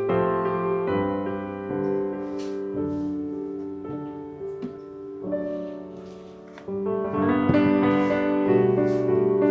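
Background music: a slow piano piece played in sustained chords, growing louder about seven seconds in.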